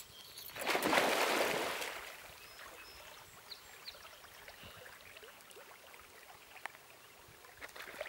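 Loud splash about half a second in as a dog plunges into a lake after a thrown stick, followed by faint lapping water as it swims.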